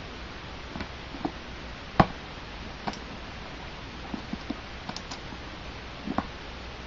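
Scattered clicks and light taps of fingers picking at the taped seal of a cardboard laptop box, the sharpest click about two seconds in.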